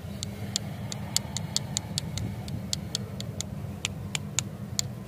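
A rapid, slightly irregular series of sharp high-pitched ticks, about three to four a second, over a steady low hum.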